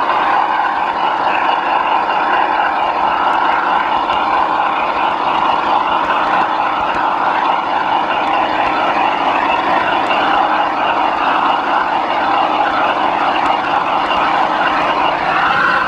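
Garden-scale model diesel locomotive running along its track, heard from a camera riding on its roof: a steady, loud drone with no breaks.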